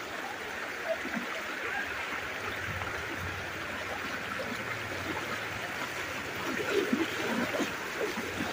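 Fast-flowing floodwater, a steady rushing of water.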